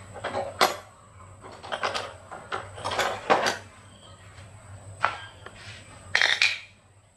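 Metal parts and hand tools clinking and knocking as they are handled and set down, a dozen or so irregular strikes, the sharpest about two-thirds of a second in and at about three and a third seconds, with a short clattering cluster near the end.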